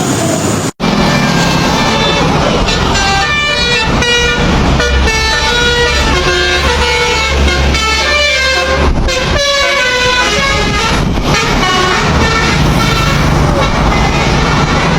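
Basuri 'telolet' musical horn on a truck playing a quick tune of short notes that step up and down in pitch, over the low rumble of the truck's engine. The sound cuts out for an instant just under a second in.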